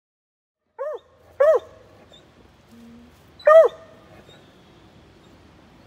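Bluetick coonhound puppy giving three short, high yelps, each rising then falling in pitch, the last one the loudest.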